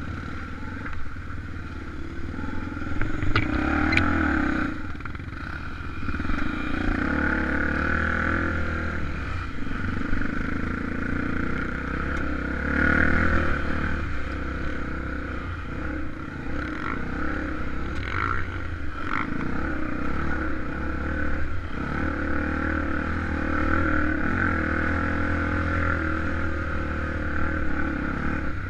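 Honda XR250 Tornado single-cylinder four-stroke enduro motorcycle engine running continuously, its revs swelling and easing. A few sharp clicks come in, about three to four seconds in and again after eighteen seconds.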